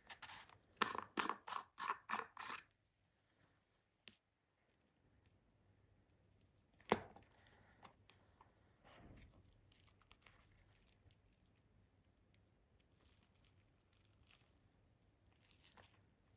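Hands handling a plastic slime tub: a quick run of about six short crinkly knocks in the first couple of seconds, then a single sharp snap about seven seconds in as the lid comes off, followed by faint scraping and rustling as the inner seal is peeled back.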